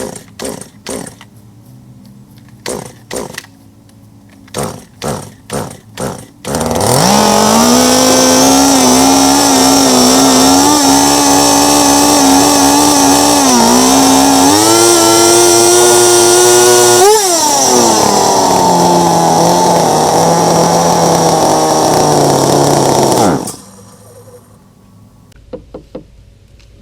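Stihl MS290 two-stroke chainsaw being pull-started: a string of short bursts as the cord is yanked, then the engine catches and runs at high speed. About ten seconds later the revs drop sharply to a low, unsteady speed, and after a few seconds the engine cuts out. The saw has a new aftermarket carburetor whose mixture screws are still being set, and it won't hold an idle.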